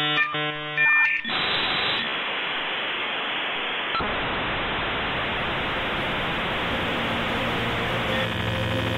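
Electronic soundtrack: a short run of synthesized tones, then a steady static-like white-noise hiss from about a second in, with faint pitched tones coming back over it near the end.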